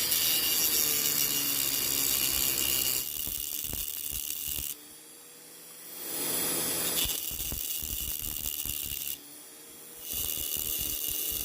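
Dremel rotary tool running and grinding through the thin metal axle of a diecast toy car. It runs in spells, stopping twice and winding back up each time.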